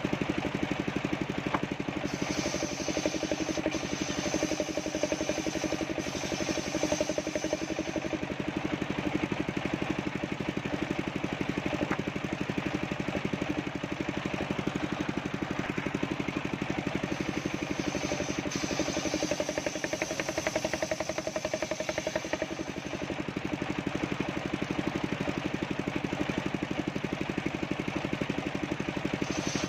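Engine-driven homemade table circular saw running steadily while its blade cuts coconut wood. A higher whine joins the steady drone twice, about 2 to 8 seconds in and again about 17 to 23 seconds in, as the blade goes through the wood.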